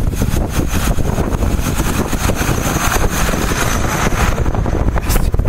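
Tractor engine running and its tyres on the slushy road as it drives past close by, loudest about two to three seconds in.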